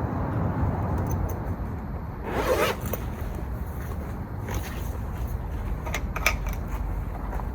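A short noisy scrape about two and a half seconds in, followed by a few light clicks, over a steady low rumble.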